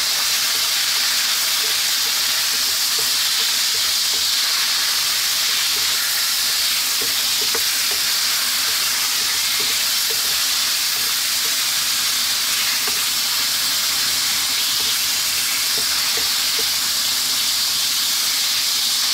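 Marinated pork belly cubes sizzling steadily in hot oil in a frying pan, with a wooden spatula stirring and scraping them now and then.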